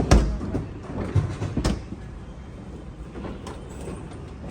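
A refrigerator door being pulled open and pushed shut: a loud thud at the start, then two smaller knocks about a second and a half in.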